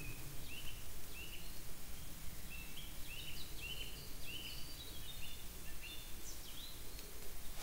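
Wild birds chirping: many short, high notes in quick succession, some overlapping, over a faint low rumble of wind.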